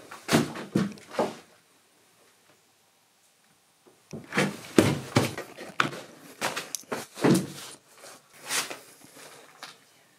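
Footsteps on stair steps covered in loose paper, each step a dull thud with papers rustling and crunching underfoot. A run of steps at the start, a pause with almost nothing heard, then a longer run of steps from about four seconds in.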